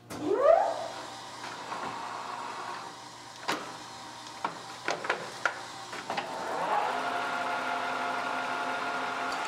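American Tool Works engine lathe's electric motor starting with a rising whine and settling to a steady hum. Several sharp clicks from the controls follow. About six seconds in, a second rising whine as the spindle is engaged and comes up to speed, then it runs steadily.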